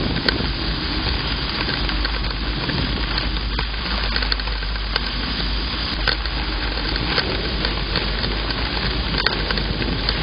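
Heavy thunderstorm rain and wind heard through an outdoor camera's microphone: a steady hiss with scattered crackles and a low rumble underneath.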